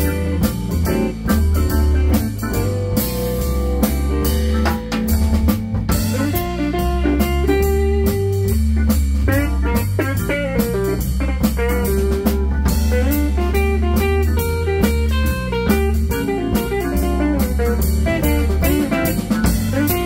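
A live band trio of electric guitar, keyboards and drum kit playing an instrumental blues passage, with the guitar prominent over a steady drum beat.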